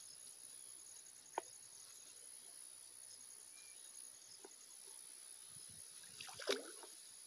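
Faint steady insect chirring with a few light clicks, and a brief watery rustle about six and a half seconds in as a magnet-fishing magnet is hauled slowly through the mud and weeds of a lagoon.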